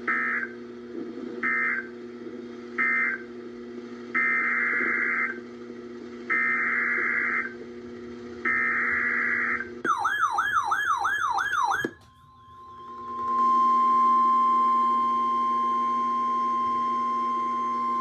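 EAS/SAME digital data bursts from a NOAA Weather Radio broadcast: three short end-of-message bursts about a second apart, then three longer header bursts announcing the next warning. Then comes a warbling alert tone of rapid falling sweeps for about two seconds, and from about a second later the steady 1050 Hz weather radio warning alarm tone, all over a low steady hum.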